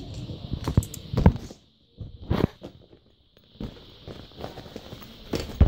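Handling noise from a phone being swung around in the hand: scattered knocks and rubbing on the microphone, with two short quiet gaps in the middle.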